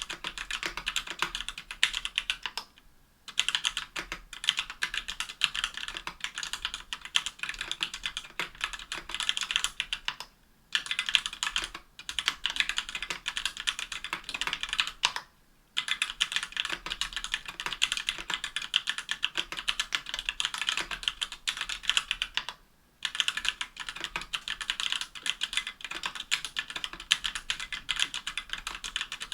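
Fast continuous typing on a KBDfans Tofu60 aluminum-case keyboard with stock Everglide Amber Orange linear switches and GMK keycaps: a dense run of high-pitched keystroke clacks, broken by a few brief pauses.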